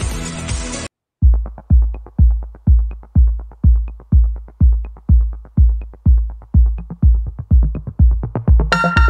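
Electronic dance music: a full mix cuts out about a second in, then a bare kick-drum beat of deep thumps a little over twice a second carries on alone until the synths come back in near the end.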